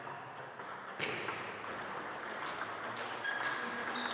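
Table tennis ball in a rally: quick clicks of bats hitting the ball and the ball bouncing on the table, with a short high ring after some hits.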